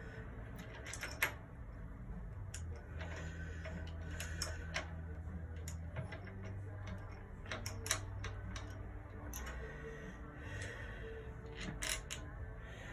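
Irregular light clicks and taps of small parts and tools being handled during assembly, over a low steady hum.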